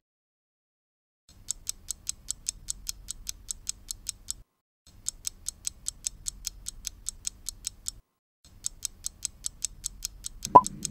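Clock-ticking sound effect marking a quiz answer timer: fast, even ticks, about five a second, in three runs of about three seconds each with short breaks, starting after about a second of silence.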